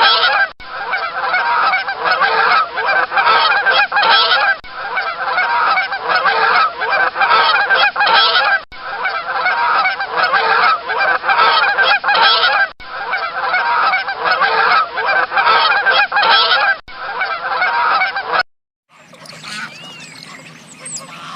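Geese honking loudly and continuously, a dense flock chorus that comes in stretches of about four seconds with brief breaks between them. About three seconds before the end it cuts off, and a fainter sound with a low steady hum follows.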